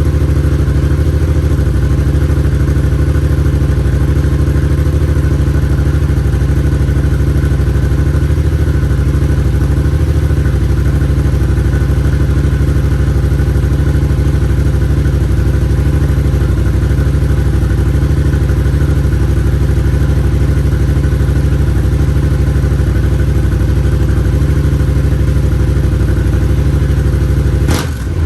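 2022 Yamaha R7's 689 cc parallel-twin engine idling steadily through an aftermarket slip-on exhaust with its baffle fitted, with a light rattle that the owner puts down to the baffle. The sound dips briefly near the end.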